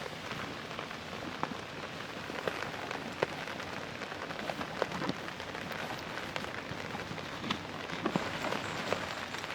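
Rain falling steadily on a camping tarp overhead, with scattered heavier drops landing as sharp taps.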